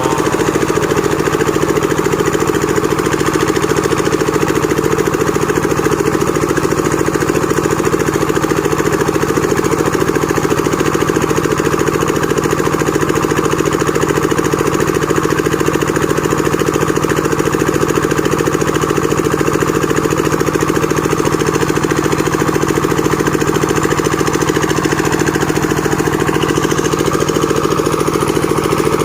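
Engine of a plank-making machine running steadily at a constant speed.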